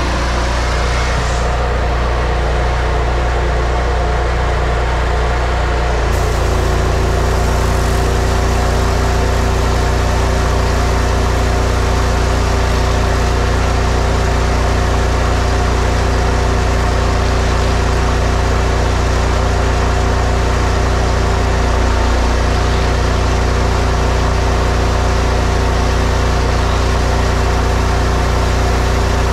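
A pressure washer's engine runs steadily. About six seconds in, a loud spraying hiss joins it as a 31-inch rotary surface cleaner blasts the concrete driveway.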